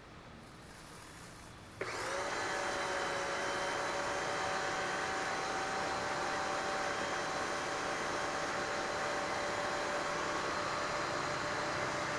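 Electric pressure washer switched on about two seconds in, its motor and pump spinning up briefly and then running steadily, as the wand's leak is tested after fitting a replacement O-ring.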